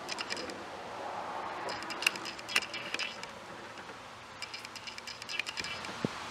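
Faint background hiss with scattered clusters of short ticks and buzzy chirps.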